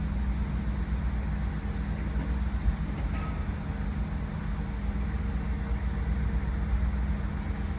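Honda Civic Type R (FL5) running steadily, an even low engine hum with no revving.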